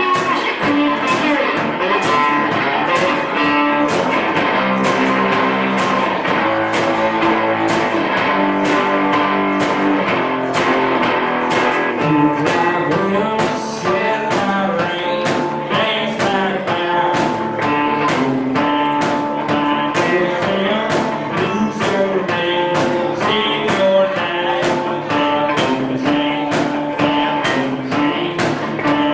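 Blues-style guitar music with a steady beat.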